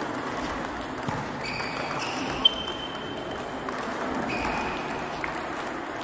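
Table tennis ball clicking off bats and table during a rally in a reverberant sports hall, with one sharp hit about two and a half seconds in. Several drawn-out high squeaks of shoes on the hall floor.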